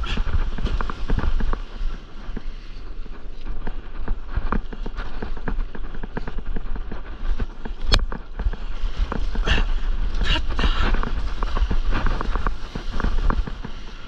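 Water splashing and slapping against a stand-up paddleboard and its board-mounted camera as the board rides a wave, with many irregular sharp knocks of spray and paddle strokes and louder bursts of spray hiss about nine to eleven seconds in. Wind rumbles on the microphone throughout.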